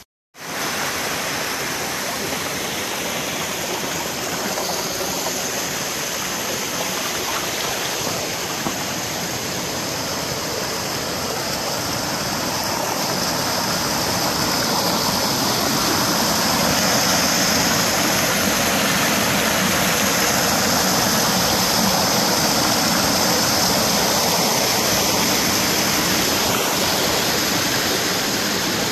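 Rocky creek rushing and splashing over boulders in a small cascade into a pool: a steady rush of water that grows a little louder about halfway through.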